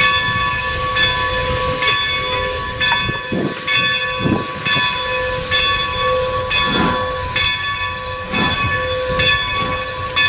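Steam locomotive whistle blown long and steady as the 'ghost whistle'. Over it the engine's bell rings about once a second.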